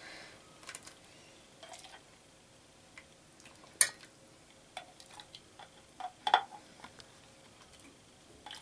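Scattered light clicks and knocks of a ladle against an enamel pot and the rim of a glass jar as cooked zucchini pieces are spooned into the jar; the two sharpest knocks come about four and six seconds in.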